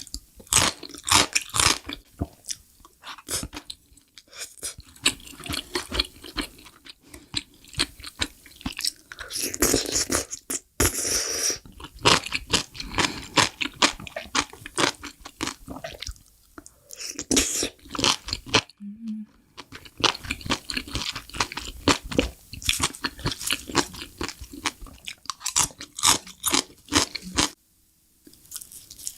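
Close-miked crunching and chewing of crunchy mushrooms, many rapid crackling bites one after another. The sound drops out briefly twice, about two-thirds of the way in and near the end.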